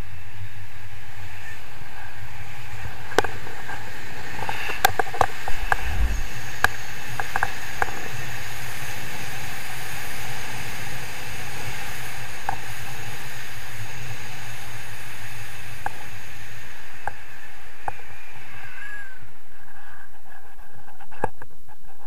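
Wind rushing over an action camera's microphone in paraglider flight: a steady noise, with scattered sharp clicks and knocks between about three and eight seconds in.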